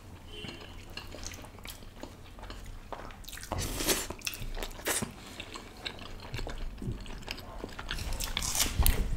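Close-miked eating sounds: chewing and biting of kulcha bread dipped in curry, with scattered short mouth clicks that come more often after about three seconds.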